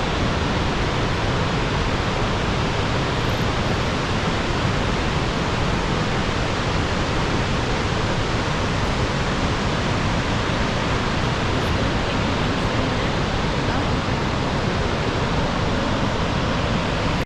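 Waterfall: a steady, dense rush of falling water that cuts off suddenly at the end.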